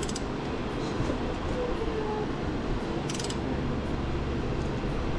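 A steady low rumble of shop noise, with two short metallic clicks about three seconds apart as a wrench turns a seal-puller screw into a transmission shift shaft seal.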